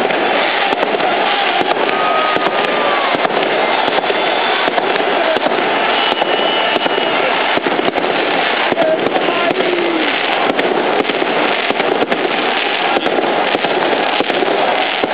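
Firecrackers and fireworks going off in rapid, irregular bangs and pops over the loud, continuous noise of a large cheering, shouting crowd.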